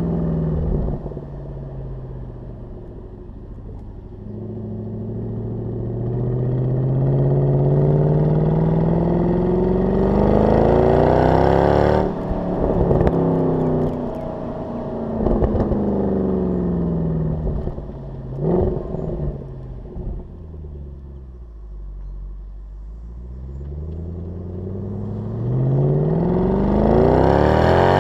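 Mercedes-AMG CLS 63 V8 exhaust under hard acceleration: the engine note climbs in pitch, drops back about 12 and 15 seconds in as it shifts up, then climbs again. A short sharp bark comes about 18 seconds in. The note then falls away as the car slows, before climbing loudly once more near the end.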